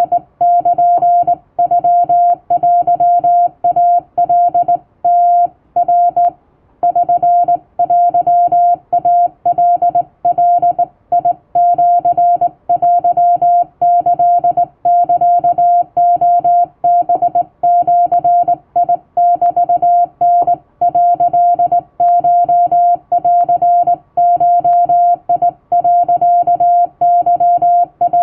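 Hand-keyed Japanese wabun Morse code: a single steady beep of about 700 Hz sent in quick dots and dashes, with short gaps between characters and one longer pause a little after six seconds in.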